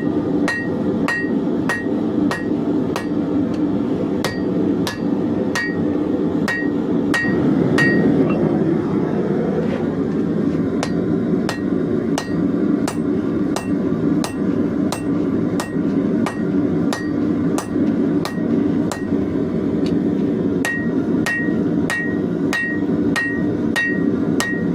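Hand hammer forging hot leaf-spring steel on an anvil, striking at a steady pace of about two blows a second. Many blows carry a bright ring, which drops out through the middle stretch. A steady low rushing noise runs underneath.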